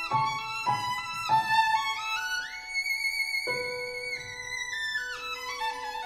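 Background violin music: a slow melody of long held notes with slides up and down between them.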